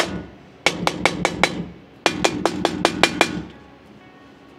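Plastic hammer tapping the clamps of a jet engine's bleed check valve in two quick runs of taps, about five and then about seven, stopping about three and a half seconds in. The tapping seats the clamps, repeated until they no longer move.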